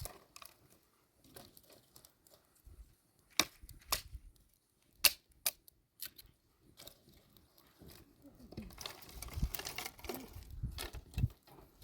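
A handful of sharp cracks and knocks, about five spread over a few seconds, followed near the end by a stretch of rustling and scraping with low thumps.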